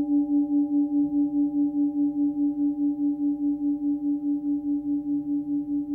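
Hand-forged 16.5 cm Tibetan singing bowl ringing on its low tone of about 290 Hz, between C sharp and D, with fainter higher overtones. The tone wavers in a steady pulse about five times a second and slowly fades.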